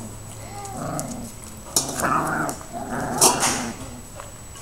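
Alaskan Malamute puppies whining and yipping, with a few short cries in a row.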